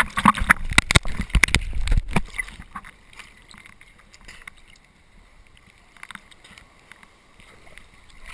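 Sea water splashing and sloshing against a camera held at the waterline by a swimmer treading water, loud and choppy for the first two seconds or so, then settling into quiet lapping with small scattered splashes.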